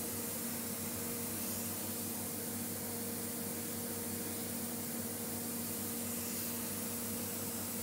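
Steady workshop machinery noise: an even hiss with a low hum and a steady mid-pitched tone underneath, unchanging throughout.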